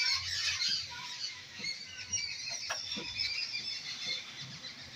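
Marker squeaking and scratching on a whiteboard as words are written, with a few short rising squeaks near the middle. Small birds chirp continuously in the background.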